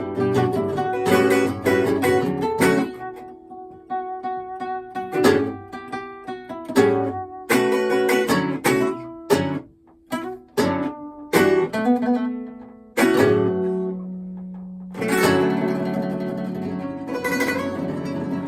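Acoustic guitar trio playing together. It opens with dense strumming, thins to sparse plucked notes and sharp chord stabs with a brief pause partway through, then a held low note, and full strumming returns near the end.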